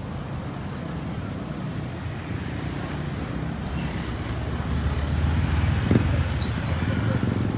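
Steady low rumble of road traffic, growing louder about five seconds in, with a brief knock about six seconds in.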